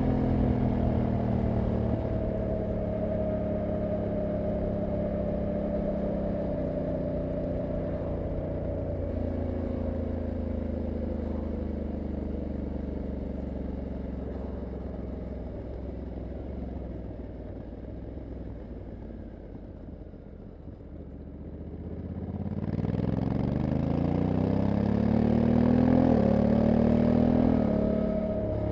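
Honda CRF1100L Africa Twin's parallel-twin engine on the move, its note sinking slowly and getting quieter as the bike rolls off from high speed. About three quarters of the way through it is opened up and revs rise steeply, with a dual-clutch upshift dropping the pitch briefly near the end.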